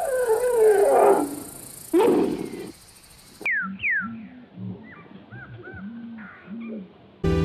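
Animal calls: a loud wavering call that falls in pitch, then a shorter call about two seconds in. At about three and a half seconds the sound changes abruptly to a few quick falling chirps and a run of short, low calls, about two a second.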